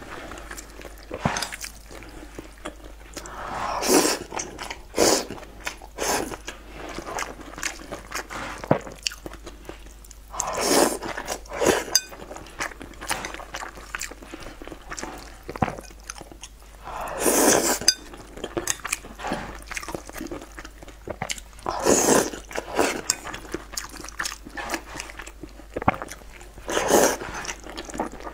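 Close-miked mukbang eating: a person chewing and biting soft, saucy food taken up with chopsticks, wet mouth sounds throughout. Louder, noisy mouthfuls come every five or six seconds.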